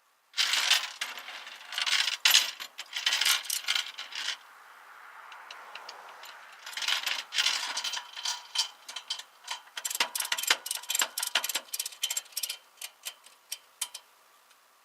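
Metallic jingling and rattling for about four seconds, then a quieter stretch, then a long run of sharp, separate metal clicks that fade out near the end.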